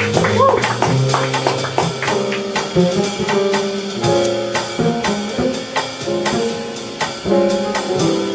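A live jazz group playing: drum kit with cymbals and an upright bass moving under a line of held melody notes.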